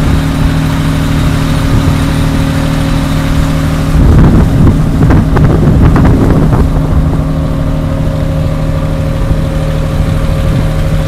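A boat's engine running steadily, with a louder stretch of rushing noise and knocks from about four to seven seconds in.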